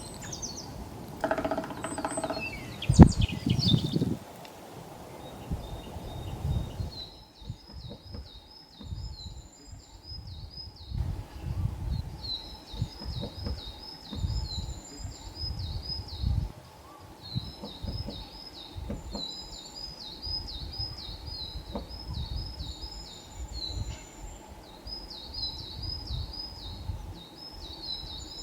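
Black woodpecker drumming on dead wood in short low rolls. This is territorial drumming, made to make the wood resonate, not to dig for larvae. A small bird's high, quickly repeated song runs over it.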